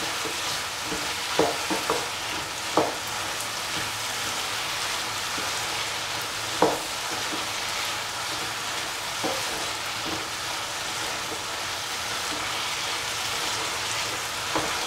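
Chicken and cauliflower frying in a pan with a steady sizzle while a spatula stirs the mixture, knocking against the pan a few times.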